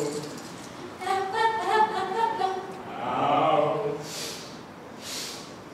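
School vocal ensemble singing a Latvian folk song in close harmony. A sung phrase starts about a second in and fades near four seconds, followed by two short hissing sounds.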